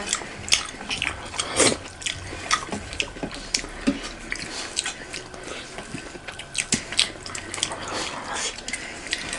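Close-up eating sounds of two people eating fish curry and dhindo with their fingers: wet chewing, lip smacks and many short, irregular clicks.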